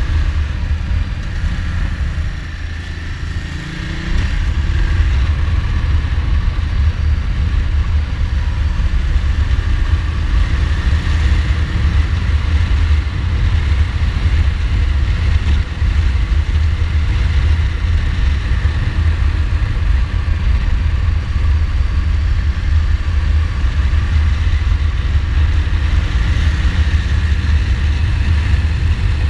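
Ducati Multistrada's V-twin engine running as the motorcycle rides along, under a heavy low wind rumble on the camera microphone. The sound eases off briefly about two to four seconds in, then holds steady at cruising speed.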